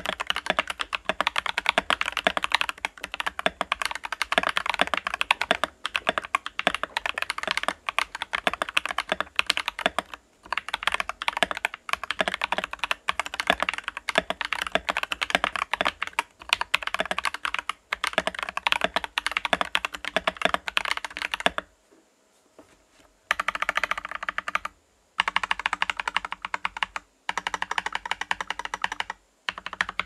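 Fast typing on a Tom680 mechanical keyboard with lubed Akko CS Lavender Purple tactile switches, PBT keycaps and a foam-filled case: a steady stream of keystrokes, broken by brief pauses, the longest about three quarters of the way through.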